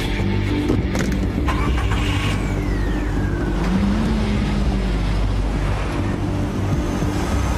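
A car engine running as the car pulls away, briefly rising and falling in pitch about four seconds in. There are a couple of sharp clicks about a second in, and a high squeal that slides down in pitch around the middle.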